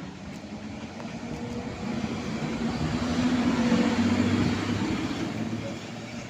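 A train passing, its sound swelling to a peak about halfway through and then fading, with a steady low motor hum under the running noise.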